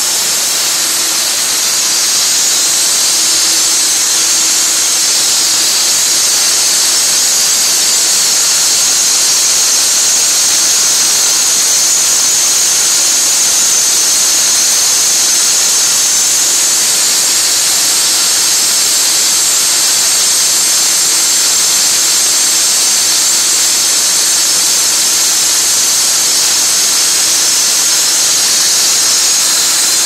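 Handheld concrete-cutting saw cutting a concrete floor, its blade shroud drawing dust through a hose into a running bucket dust vacuum: a steady, loud, high rushing noise with a faint low hum, unbroken throughout.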